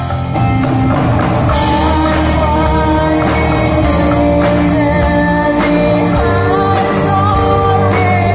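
Live rock band playing: a woman singing a sustained melody over electric guitars and a drum kit.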